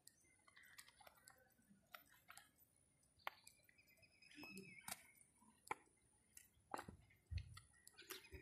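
Near silence with scattered faint clicks and a soft low thump about seven seconds in.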